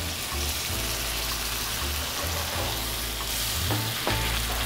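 Steady sizzling and hissing as bone broth is poured into a very hot stainless-steel pan of charred vegetables.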